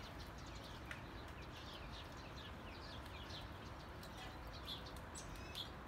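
Faint chirping of small birds: a steady run of short, high chirps, several a second.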